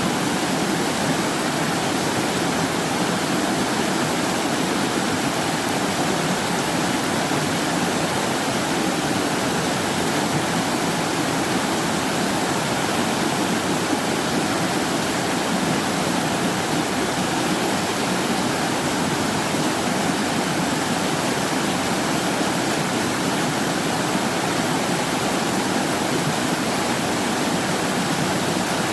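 Mountain stream rushing steadily over rocks, a continuous even rush of water.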